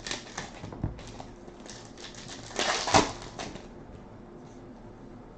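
2015-16 Panini Revolution basketball trading cards being flipped through and slid against one another by hand, making a string of light clicks and rustles that is loudest about three seconds in.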